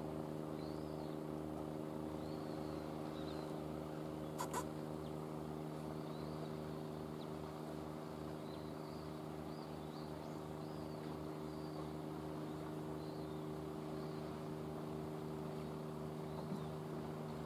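A steady low engine hum with a fast pulsing beat underneath, with faint short chirps repeating about once a second high above it and a single click about four and a half seconds in.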